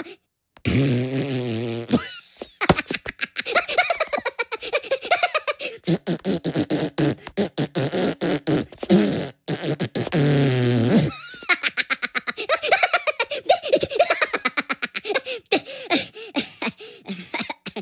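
Minion cartoon character's high-pitched gibberish voice and giggling, mixed with rapid sputtering fart-like noises, including a long low buzzing one about a second in.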